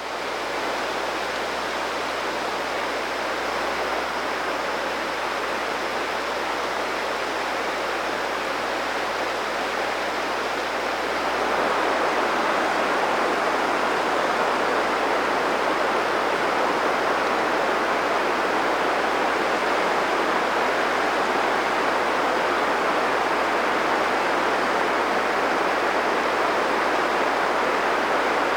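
Steady rush of running water, such as a stream or small waterfall, growing louder about eleven seconds in.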